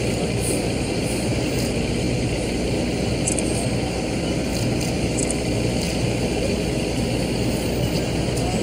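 Steady rumble of city street traffic, with vehicle engines running close by, and a few brief faint high ticks in the middle.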